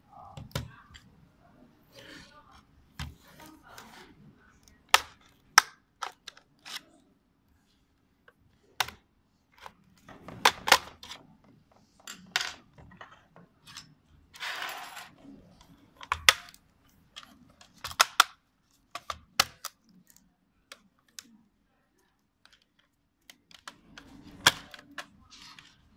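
Irregular sharp plastic clicks and knocks from a DPVR VR headset's plastic frame and head strap being handled and taken apart, with a brief scraping rub about halfway through.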